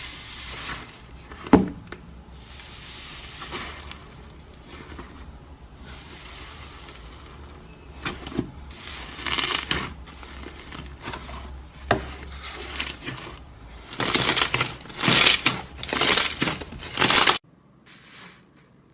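Slime being squished and poked by hand: a steady crackling with occasional sharp clicks, and a run of louder crackly bursts near the end before it cuts off suddenly.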